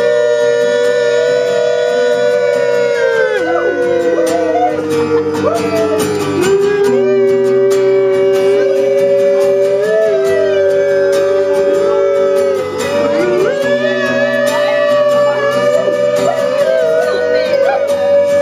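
Live acoustic guitar strumming under long wordless sung notes, each held for several seconds, often two pitches at once in harmony.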